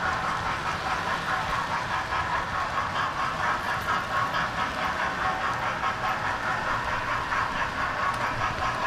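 Model train running on its track, heard close up from a car of the train itself: a steady rattling whir of small wheels on rails and the running motor, fluttering rapidly in level.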